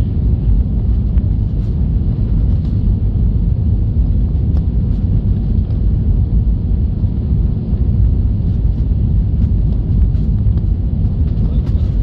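Steady low rumble of cabin noise inside an Airbus A320 descending on approach to land: engine and airflow noise heard through the fuselage.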